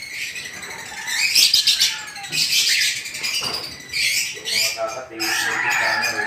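Caged lovebirds calling, a run of shrill, harsh chirps and squawks that come in several clusters and overlap.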